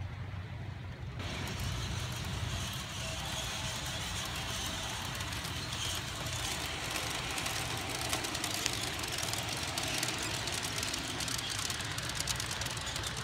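Garden-scale model diesel train running on outdoor track: a steady low rumble, with a rushing hiss that comes in about a second in and light rapid clicking in the later part.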